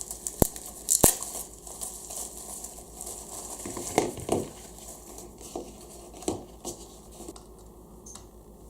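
Packaging crinkling and rustling as it is handled and opened, with two sharp clicks about a second in and a few lighter taps later.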